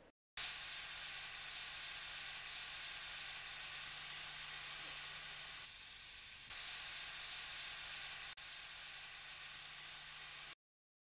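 Steady hiss with a faint low hum underneath, the noise floor of an old analogue videotape recording. It switches on abruptly, steps down in level briefly a little past the middle and again near the end, then cuts off suddenly.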